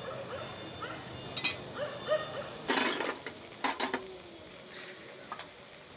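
Dishes and utensils clattering on a food-stall counter: a loud clatter about three seconds in, followed by a few sharp clicks.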